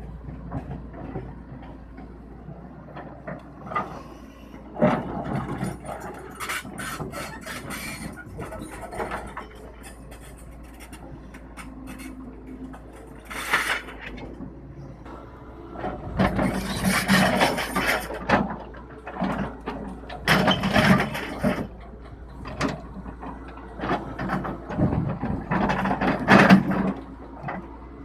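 Tata Hitachi Zaxis 210LCH excavator's diesel engine running steadily, with repeated metallic clanking and rattling as its loose steel track chain is lifted and dragged over rocky ground by the bucket. The clanking comes in louder bursts in the second half.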